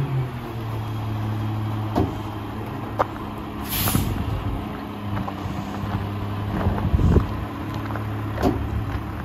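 Mack LR rear-loader garbage truck's diesel engine idling steadily, with sharp knocks about two, three and seven seconds in as a cart is emptied on the tipper into the hopper. A short hiss of air comes just before the middle.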